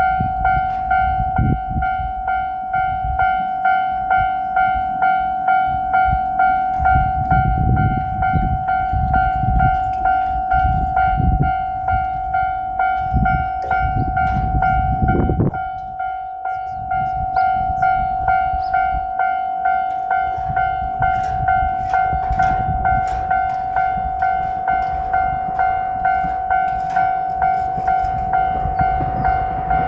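Japanese level crossing warning bell ringing steadily at about two strikes a second. Underneath it a low rumble comes and goes, and from about two-thirds of the way through sharp clicks join in as a train approaches the crossing.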